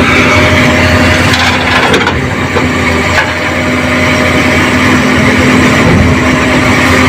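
Excavator diesel engine running steadily, with rough crunching and scraping as soil stuck in a dump truck bed is worked loose.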